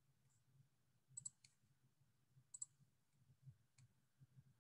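Near silence broken by a few faint computer mouse clicks, two quick pairs about a second in and just past two and a half seconds in.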